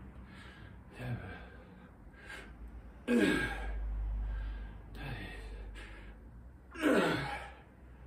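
A man breathing hard under exertion through repeated dumbbell presses. Two loud, gasping exhalations fall in pitch, about three seconds in and again near the end, with smaller, quicker breaths in between: the strained breathing of a lifter tiring late in a long set.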